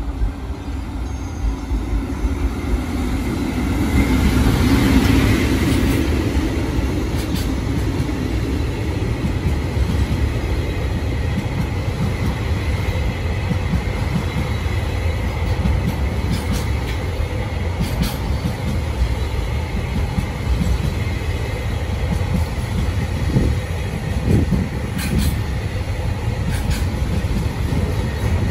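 Freight train passing close by, hauled by an EF65 electric locomotive: the locomotive goes past about four to six seconds in, the loudest moment. A long line of Koki 107 container flatcars then rolls by with a steady rumble and occasional clicks of wheels over rail joints.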